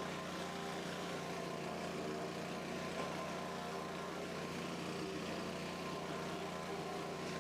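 Gas pressure washer's Honda GC190 single-cylinder engine running steadily under load, with the hiss of high-pressure water spraying onto deck boards.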